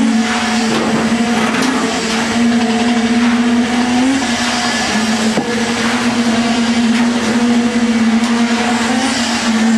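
An engine running steadily with a constant droning hum. Its pitch lifts slightly and then dips briefly about four to five seconds in.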